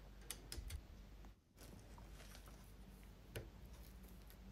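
Near silence: faint room tone with a few light clicks in the first second and a single click a little past three seconds in, briefly cut to dead silence just before the middle.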